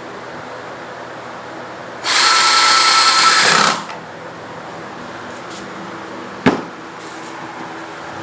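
Power drill running at full speed for about a second and a half, with a high whine, then a single sharp knock a few seconds later.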